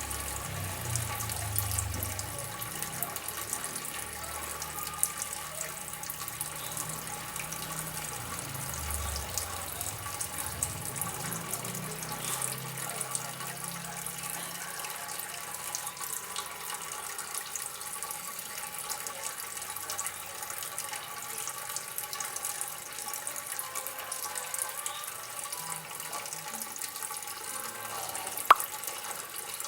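Water trickling and splashing steadily in a continuous hiss, with a single sharp click near the end.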